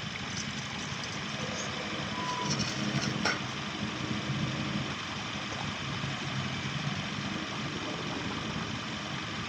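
A vehicle engine idling steadily, with a short high beep about two seconds in.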